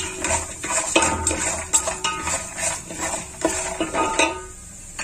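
Ladle scraping and clinking against the inside of an aluminium pot while stirring cashews and seeds frying in oil. The strokes come irregularly and stop about four and a half seconds in.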